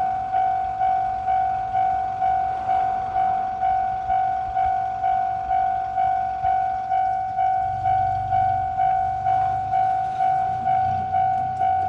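Japanese railway level crossing warning bell ringing 'kan-kan', a single clanging tone struck about twice a second, each strike fading before the next. A low rumble comes in about eight seconds in.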